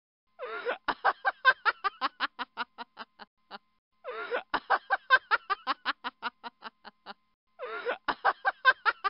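A woman's laugh played three times over, the bouts about three and a half seconds apart. Each opens with a drawn-out note and breaks into a quick run of 'ha' pulses that slow and fade.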